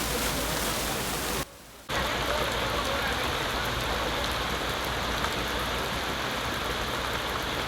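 Steady heavy rain with an even hiss. It cuts out for about half a second roughly a second and a half in, then carries on unchanged.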